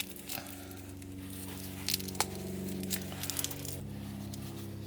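Heat insulation being peeled and torn off a hose by hand, with scattered crackles and a sharp click about two seconds in. A steady electrical hum runs underneath and changes pitch near the end.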